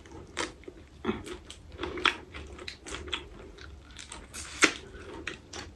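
Close-miked chewing and biting of seafood-boil food: a run of wet mouth clicks and smacks, with one sharper click about four and a half seconds in.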